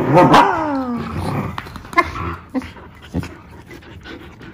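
A dog whining in a high voice that slides down in pitch during the first second, then quieter scuffling with a few sharp clicks as dogs jostle.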